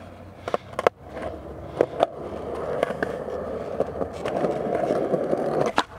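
Skateboard wheels rolling on concrete, the rolling noise growing louder as the board picks up speed, with scattered sharp clacks of the board. A cluster of loud clacks near the end is a kickflip being popped and landed.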